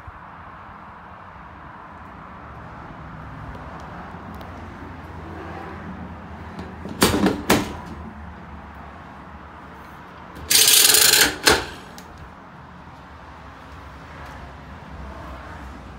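Metal clanks from the stainless steel partition bars and fittings of a horsebox being handled: two sharp knocks about seven seconds in, then a louder rattle lasting about a second at about ten and a half seconds, ending in one more knock.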